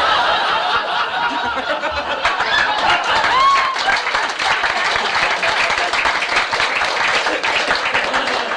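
Audience applauding, with laughter and a few voices mixed in among the clapping.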